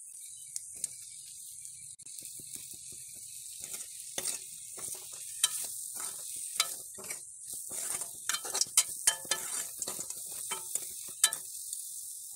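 Onions, taro and mutton sizzling as they fry in oil in a metal kadai, with a ladle scraping and clicking against the pan as it is stirred. The stirring strokes come thicker and sharper through the second half.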